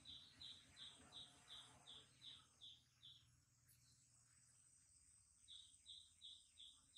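Faint, high chirping calls repeated evenly about three times a second, in two runs with a pause of a couple of seconds between them, over near-silent room tone.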